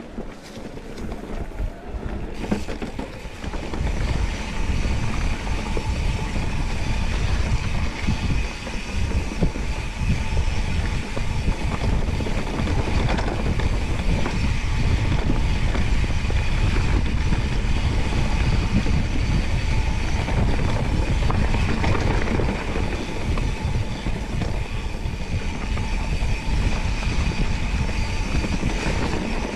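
Mountain bike rolling over rough trail: tyres on dirt and rock and the bike rattling, with wind rumble on the microphone. It grows louder over the first few seconds as the speed builds, then stays steady.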